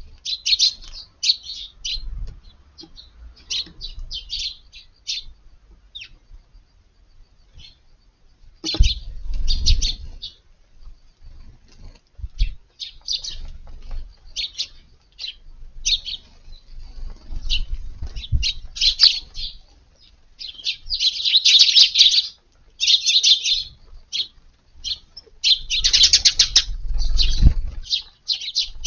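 Eurasian tree sparrows chirping busily, a dense run of short, high chirps from several birds, with a few spells of low rustling and thudding among them.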